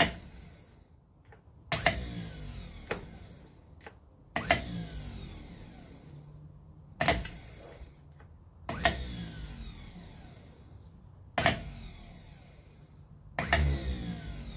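A Datsun 1000 starter motor, out of the car, jolting into life seven times as its solenoid terminals are shorted across the battery. Each time the solenoid throws the pinion gear out and the motor spins up with a sudden clack, then whirs down in a falling pitch.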